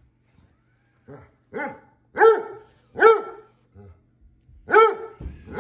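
Basset hound barking at a robot floor cleaner: a series of about six barks, starting softly about a second in and getting louder, each bark rising and then falling in pitch.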